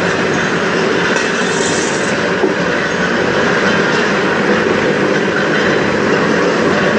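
Electric peanut butter grinding mill running with a loud, steady mechanical rattle, as peanuts are poured into its stainless-steel hopper and fed to the grinder.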